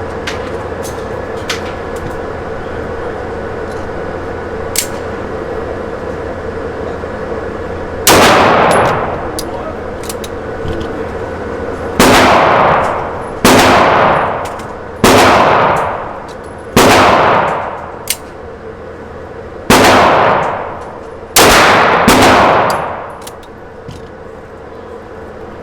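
Eight pistol shots fired at an uneven pace over about fifteen seconds, the first alone and the rest in quicker pairs and singles, each with a ringing echo tail. Faint small clicks come before the first shot.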